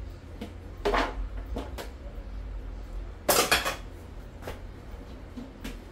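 Dishes and a plastic food container knocking and clattering at a kitchen sink: a handful of separate knocks, the loudest clatter about three and a half seconds in, over a steady low hum.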